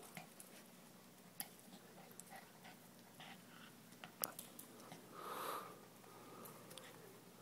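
Small dog gnawing a rolled rawhide chew stick: faint, scattered clicks and crunches of teeth on the hide. About five seconds in comes a short, louder breathy rush, which is the loudest sound here.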